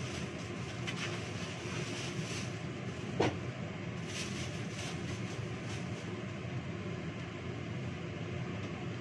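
Steady mechanical hum throughout, with a clear plastic bag being handled and rustling now and then, and one short sharp click about three seconds in.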